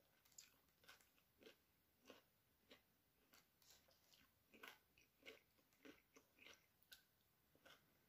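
Faint mouth sounds of a person chewing a mouthful of grilled pork salad and sticky rice: soft, irregular smacks and clicks, roughly two a second.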